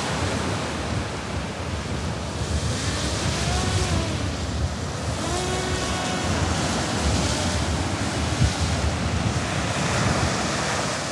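Surf breaking and wind buffeting the microphone, with the propeller whine of a fishing drone rising and falling in pitch a few times in the middle as it climbs away over the waves carrying a bait rig.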